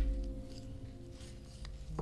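Knife carving a maple spoon, a few faint slicing strokes, over soft background music with held chords.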